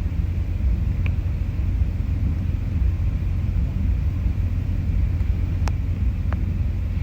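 A steady deep rumble with three short, faint ticks: about a second in, near five and a half seconds and just after six seconds.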